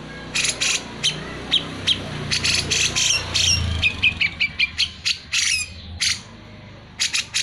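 Cucak jenggot (grey-cheeked bulbul) in full song: a quick run of sharp chirps and short whistled notes, some sliding down in pitch, packed closely for about six seconds, then a few last notes near the end.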